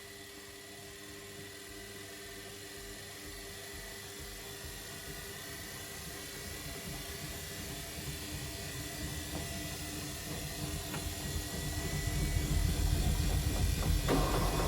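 Samsung washing machine's drum motor speeding up, with a faint steady whine and a rumble that grow steadily louder, and a sudden rise in rushing noise near the end.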